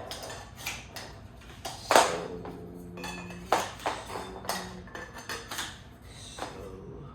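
Metal chair parts and hardware being handled and fitted during assembly: a series of knocks and clinks, the loudest about two seconds in, some ringing briefly after the hit.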